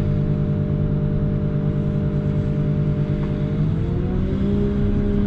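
CAT loader's diesel engine running steadily, then revving up with a rising pitch about three and a half seconds in.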